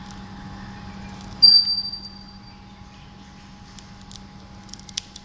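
A bird gives one loud, high, clear whistled call that starts sharply and fades over about a second, over a steady low hum and a few light clicks.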